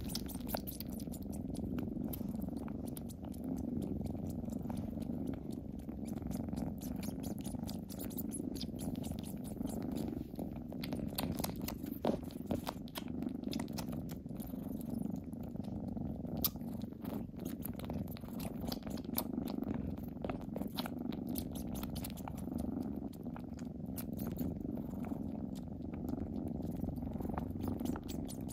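Kittens purring steadily and close up, with many small wet clicks from a kitten sucking and mouthing on a person's hand.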